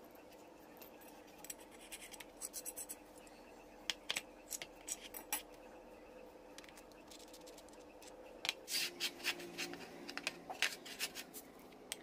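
Small steel parts handled and fitted together by hand: light clicks, taps and scrapes of metal on metal, coming in two scattered clusters, over a faint steady hum.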